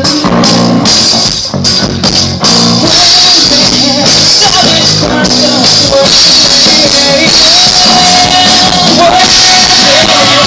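A rock band playing live, with drum kit, cymbals and a singing voice, recorded loud and close on a phone.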